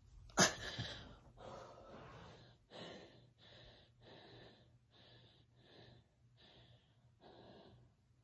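A woman breathing hard and fast after floor exercises, winded: one loud, sharp breath about half a second in, then a steady run of heavy, airy breaths, roughly one every 0.7 seconds.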